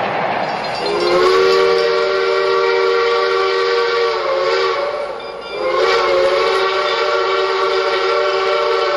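Union Pacific 4-8-4 #838's three-chime steam whistle blowing two long blasts over a steady steam hiss. The first blast starts about a second in, and the second follows after a short break around the middle.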